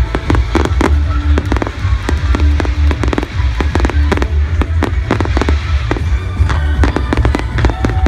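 Fireworks display bursting in quick succession: many sharp bangs and crackles over a heavy low rumble, with music playing underneath.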